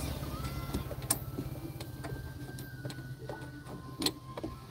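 A few sharp metallic clicks and taps as a spark plug socket is worked against a motorbike engine, the clearest about a second in and near the end, over a steady low mechanical hum.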